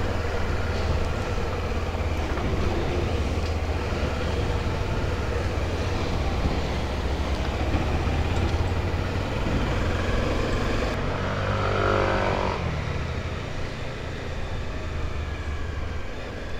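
Honda XRE300's single-cylinder engine running steadily while riding at low speed, heard as a constant low hum with wind and road noise over it. A brief higher-pitched sound comes through about twelve seconds in.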